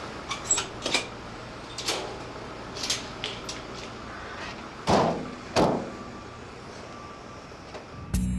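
Rear doors of a Ford Transit van slammed shut one after the other: two loud bangs about half a second apart, a little past the middle. Before them come several light knocks and clatters of plastic pet carriers being shifted in the back of the van.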